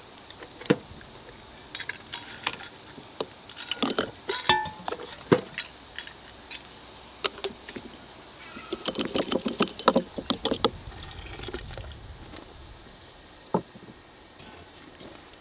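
Hot cooked mushrooms being spooned through a plastic canning funnel into glass mason jars: a run of sharp clinks and taps of glass and utensils, with wet plops and drips, busiest a little past the middle.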